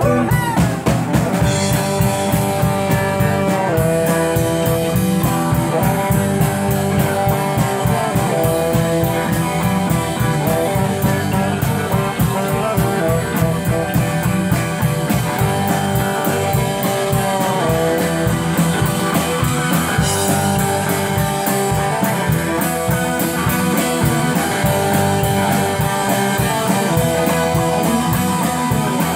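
A rock band playing a jazzy instrumental, with electric guitar and two saxophones holding long notes over a steady beat.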